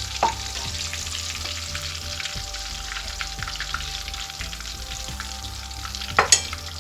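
Minced-chicken lollipops frying in hot oil: a steady sizzle full of small crackling pops. A sharp knock comes about a quarter second in, and two louder knocks close together come near the end.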